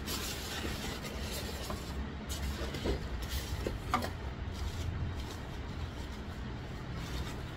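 Cardboard box being handled and plastic wrapping rustling as a car stereo head unit is lifted out, with a few short knocks, over a steady low rumble.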